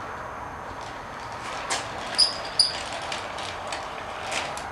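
Homemade camera slider carriage, a wooden board on PVC wheel pieces, sliding along twin PVC pipe tracks with a soft rolling rub. A little past two seconds in there are two sharp clicks with a brief high ring, about half a second apart.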